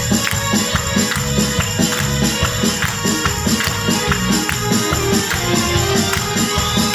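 Instrumental break of a Gypsy-style pop song's backing track, with no singing: a steady beat of bass notes and bright percussion strikes.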